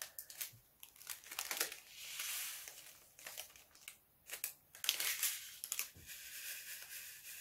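A small plastic bag of resin diamond-painting drills crinkling as it is handled and emptied, with the drills rattling into a plastic drill tray. The sound comes in bursts, then turns into a steadier rattle near the end.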